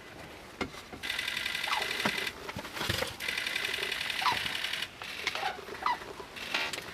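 White-naped cranes calling: two long rolling, rattling calls, followed by several short rising calls.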